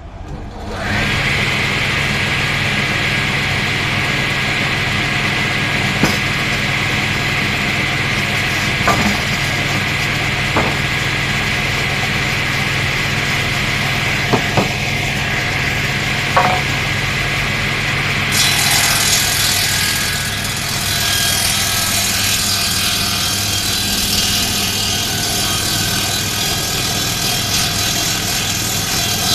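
Electric woodworking machine running steadily while timber is worked, with a few sharp knocks in the first half. About two-thirds of the way in the sound turns brighter and harsher as the cut changes.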